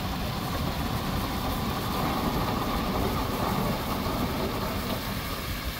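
Fire truck engine running steadily to drive the pump, a continuous low rumble with the hiss of the water stream mixed in.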